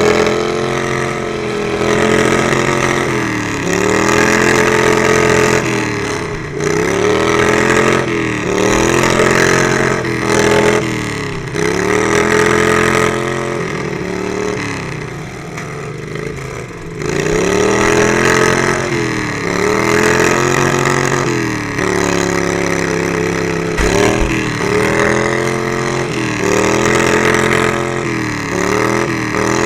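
Racing lawnmower engine running hard, its pitch repeatedly dropping and climbing back every second or two as the throttle is let off and opened again.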